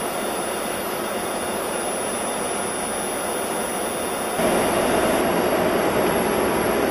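Steady rush of airflow and jet-engine noise in the cockpit of an Airbus A300-600R on approach. The noise steps up suddenly about four and a half seconds in and stays louder.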